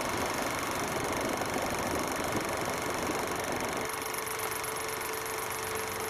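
Rumbling road noise heard from inside a moving vehicle. About four seconds in, the sound changes to a quieter background with a steady hum and a fast, very high pulsing.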